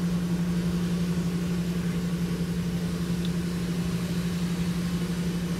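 Automatic car wash running, heard from inside the car: a steady low hum with water spraying against the windshield.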